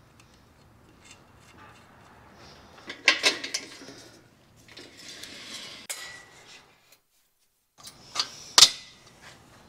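Metal clinks and knocks of steel and aluminium frame parts being handled and fitted together while a CNC plasma table is assembled. The clicks come in scattered groups, and the loudest sharp knock falls near the end.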